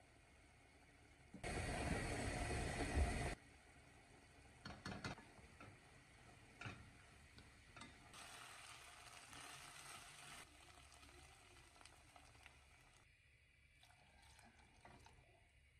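Stirring diced chicken in a nonstick frying pan: a loud hiss of about two seconds near the start, then scattered clicks of a wooden spatula and spoon against the pan, and a softer hiss a few seconds later.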